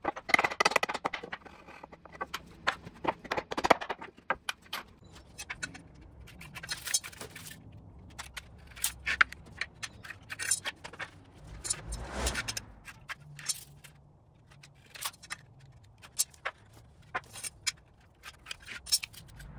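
Pallet boards knocking and scraping as a board is wrenched free, a dense run of knocks for the first few seconds. Then scattered light clicks and scrapes of a metal square, pencil and boards being handled on a concrete floor while boards are marked to length.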